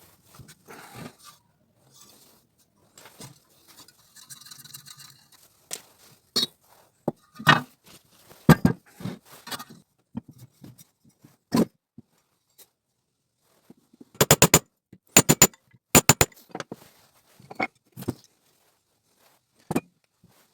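Workshop handling noises from taking apart and restoring a bench grinder: a series of separate sharp knocks, clicks and scrapes of its parts and hand tools. Near the middle come several quick groups of three or four clicks.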